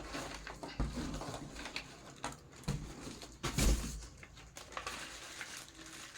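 High chair parts being handled and pulled from their packaging: irregular knocks and clicks with rustling, and one heavier thump about three and a half seconds in.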